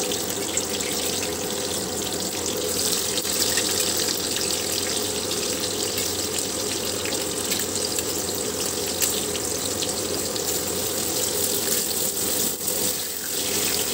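Potatoes, wet from their soaking water, sizzling steadily in hot oil left over from frying onions.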